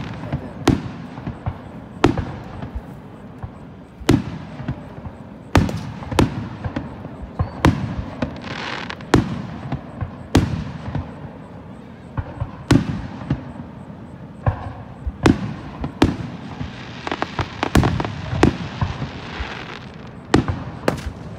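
Aerial firework shells bursting in quick succession: sharp booms about once a second, irregularly spaced, with stretches of hissing crackle from the breaks about a third of the way in and again near the end.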